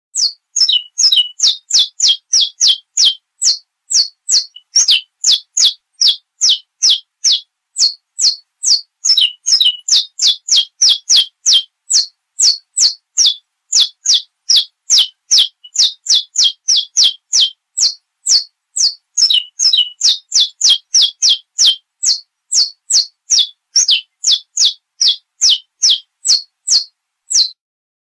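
Saffron finch (canário-da-terra) singing: a long run of short, high notes, each sweeping quickly downward, about two to three a second, with a few brief gaps.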